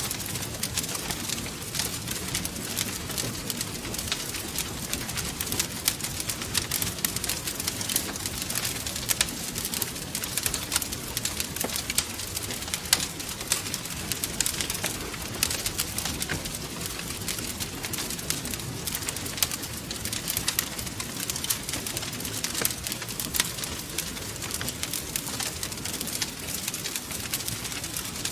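Wood fire burning in a fireplace, crackling steadily with many quick pops and snaps over a soft low rush of flame.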